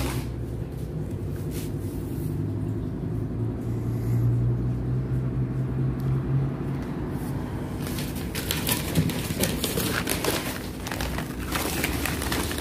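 Brown kraft-paper wrapping torn and crumpled off a box in a run of rips and crackles from about eight seconds in, over a steady low hum.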